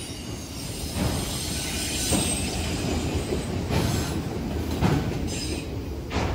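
Autorack freight cars rolling past close by: a steady rumble of steel wheels on rail, with a clack from the wheelsets over rail joints every second or so. A brief high wheel squeal comes about five seconds in.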